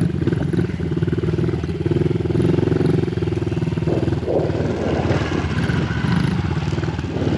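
Dirt bike engine running at low speed with a steady pulsing note that shifts in pitch partway through.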